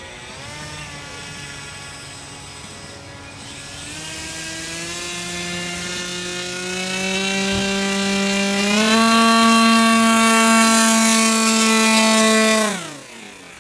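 HobbyKing Swamp Dawg RC airboat's brushless outrunner motor and 5.5-inch propeller whining, growing louder as the boat approaches. The pitch steps up about two-thirds of the way through, then falls sharply and fades as the boat speeds close past near the end.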